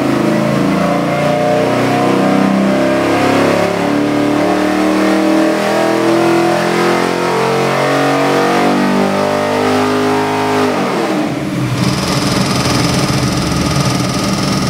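A 427-cubic-inch LS3 V8 crate engine runs at full throttle on an engine dynamometer, pulling from about 3,000 rpm up toward 6,000 rpm. About 11 seconds in the throttle is closed and the engine drops back sharply to a lower, rougher running sound.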